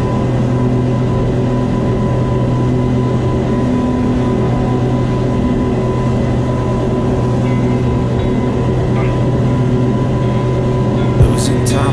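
Twin outboard motors running steadily at speed, a continuous low drone with an even hiss of wind and spray over it. A sharp knock comes near the end.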